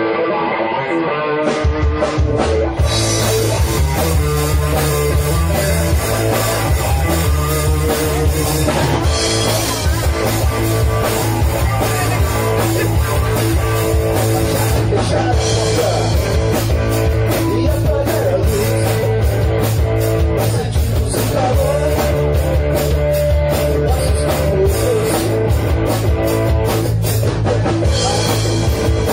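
Live rock trio of electric guitar, bass guitar and drum kit playing together. The guitar plays alone at first; bass and drums come in at about two seconds, and the full band carries on from there.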